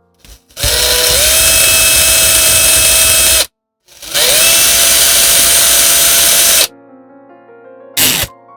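Handheld rotary power tool run twice for about three seconds each, its motor pitch rising as it spins up, then holding steady before it cuts off suddenly.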